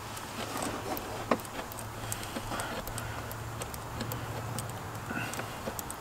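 Scattered light clicks and taps from a throttle body's mounting screws being fitted and threaded in by hand, over a low steady hum.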